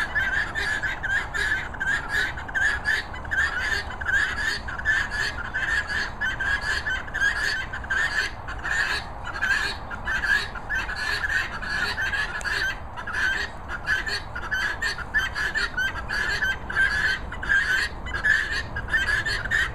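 Birds calling: a dense, continuous chatter of short calls, several a second.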